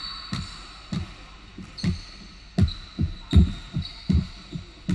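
Basketball dribbled on a hardwood gym floor: about ten dull thumps, coming faster in the second half.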